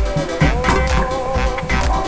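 Background music with a steady beat and held notes that slide up into pitch.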